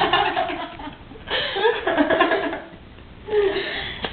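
Laughter and giggling in three bursts, with short quieter gaps between them.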